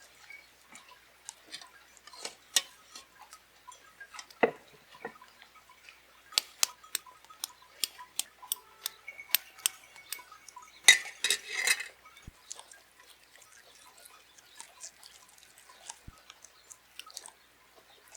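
Irregular light clicks and taps of hard objects being handled, with a short, louder clatter about eleven seconds in.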